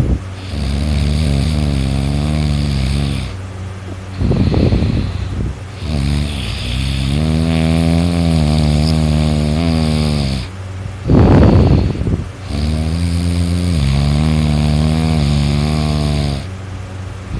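A sleeping man snoring heavily: two short, loud rattling snorts, each followed by a long, drawn-out droning snore that wavers in pitch, in a slow repeating breath rhythm. A steady low hum runs underneath.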